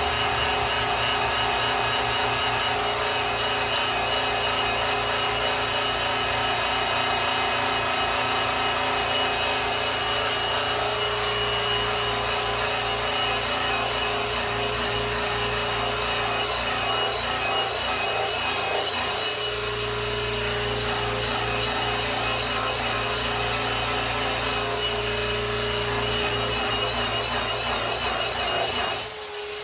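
Electric polisher running, its pad rubbing over a grand piano's finish: a steady motor hum and whine over a rough rubbing hiss, dipping briefly near the end.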